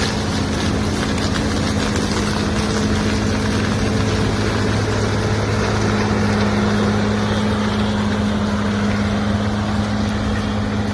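Combine harvester's engine running steadily with a constant deep hum and a noisy rush of machinery over it, as it harvests corn.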